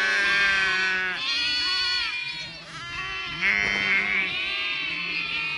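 Ewes and lambs bleating in a flock, with several long calls overlapping one another.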